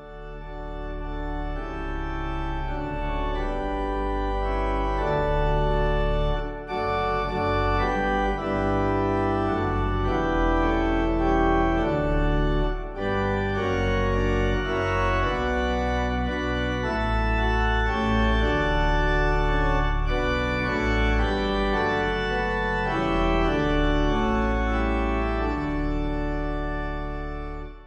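Organ music: slow, sustained chords over a deep bass line, fading in at the start and stopping near the end.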